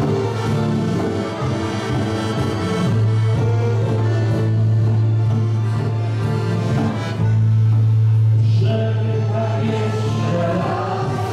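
A folk band playing: piano accordion with keyboard accompaniment, and long held low bass notes through the middle.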